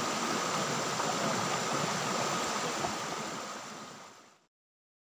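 River water rushing steadily over rocks and small rapids, fading away over the last second or so before cutting off.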